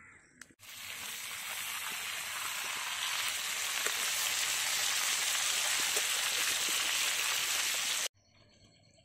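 Pieces of rohu fish sizzling as they fry in hot oil in an iron kadai. The sizzle is a dense, even hiss that starts suddenly about half a second in and cuts off abruptly about a second before the end.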